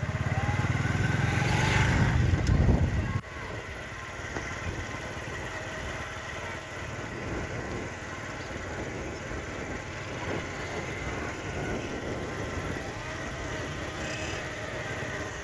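Outdoor ambience: a loud low rumble that builds over the first three seconds and cuts off suddenly, then steady quieter background noise.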